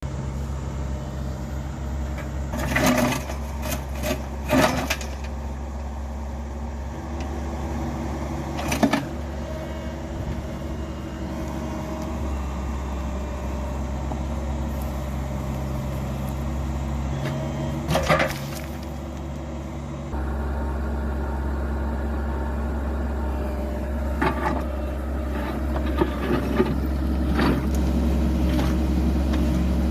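Cat 304E mini excavator's diesel engine running steadily, getting a little louder about two-thirds of the way through. Sharp clanks and scrapes come several times as the bucket breaks out a concrete sidewalk.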